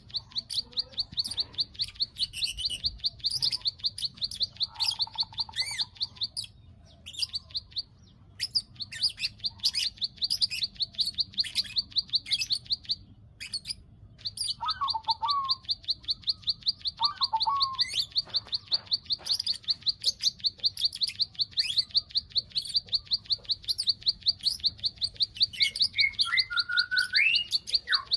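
Bar-winged prinia (ciblek) giving its rapid 'klik-klik' clicking call: long runs of fast, high ticks broken by a couple of short pauses, with a few separate short chirps. This is the call that bird keepers play as a lure to bring kept birds into breeding condition.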